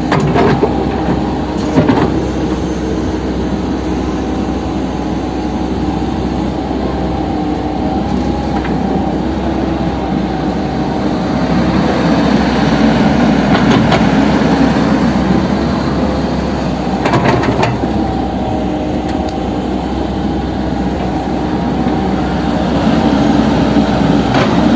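Backhoe's diesel engine running steadily and growing louder twice as it works, with a few sharp metallic clanks.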